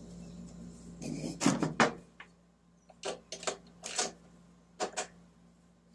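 A new NGK BPR5ES spark plug being started by hand into a Honda mower engine's cylinder head: a short scraping rustle, then a few light separate clicks and taps as it is handled and threaded in.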